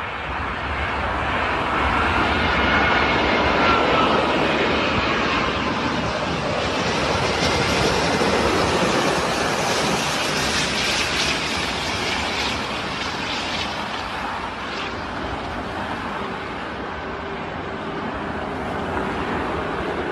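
Four-engine Airbus A380 airliner's jet engines, a steady rushing noise as it passes low on approach and lands. A faint whine rises and falls in pitch a couple of seconds in, and the noise swells loudest about four seconds in.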